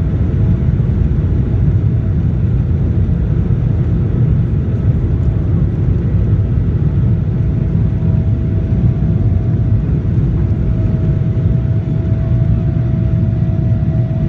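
Boeing 777-300ER's GE90 jet engines and airflow heard inside the passenger cabin: a loud, steady low rumble with a faint steady whine above it.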